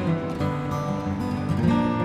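Background instrumental music with plucked string notes.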